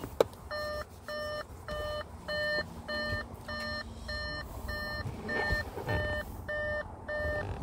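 A sharp click just after the start, then a steady run of electronic warning beeps, about a dozen short even tones repeating a little under twice a second.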